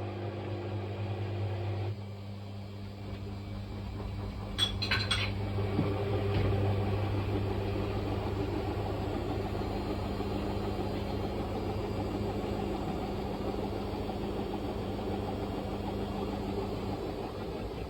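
Washing machine running with an unbalanced load: a steady hum, a few sharp clinks about five seconds in, then a louder, rough rattling that keeps going.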